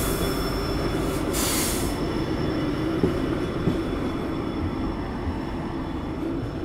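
Passenger train in motion, heard from on board: a steady rumble and rattle of the coach on the track, with a brief rush of hiss about a second in.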